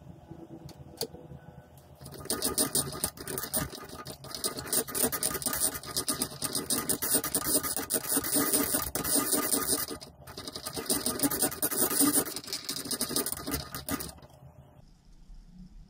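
A spoon stirring soy-sauce braising liquid in a metal saucepan: busy scraping and swishing that starts about two seconds in and stops about two seconds before the end.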